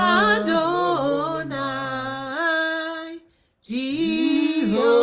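Unaccompanied singing of a slow worship chant, with long held notes on the divine names "Elohim" and then "Adonai". There is a brief pause a little over three seconds in.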